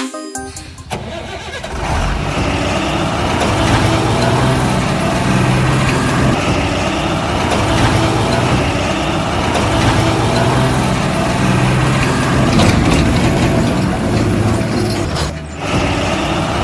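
Large diesel truck engine starting about a second in, then running steadily at idle. It is a recorded engine sound laid over the unpowered toy vehicles.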